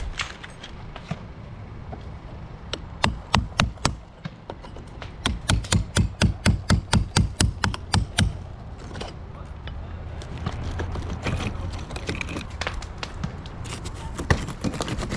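Hammer blows on brickwork: a few strikes about three seconds in, then a quick even run of about a dozen, roughly four a second, with scattered lighter knocks later.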